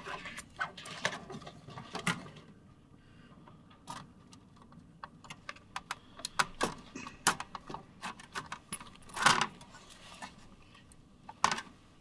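Scattered light metallic clicks, clinks and knocks as a motherboard is worked down into a small steel PC case and pressed against its rear IO shield. The loudest knocks come about three quarters of the way through and again near the end.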